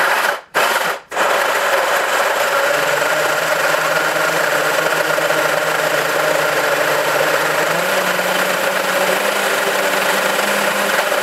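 Countertop blender switched on, cutting out twice briefly in the first second, then running steadily at high speed through a thick mix of soaked dates and maple syrup. Its motor hum steps up slightly in pitch about eight seconds in.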